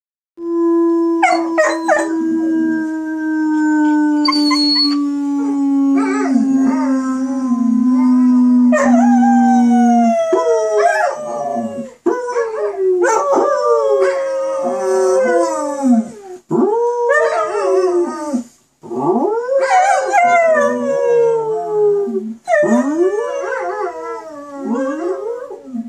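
German Shepherd–Husky mix puppy howling: repeated wavering howls that rise and fall in pitch, broken by short yips and brief pauses. For about the first ten seconds a long, low, steady howl-like note runs beneath it, sliding slowly down in pitch.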